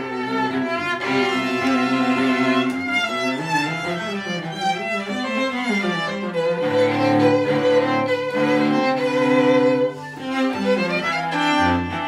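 Violin and cello duo playing bowed, the two lines together. Partway through, the violin holds a long note with vibrato over sustained low cello notes, then both break off briefly before playing on.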